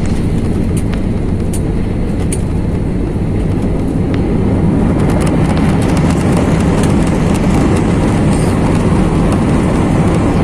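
Jet airliner cabin noise on the ground after landing: a steady roar of the engines and the wheels rolling on the runway, heard inside the cabin, growing a little louder about four seconds in.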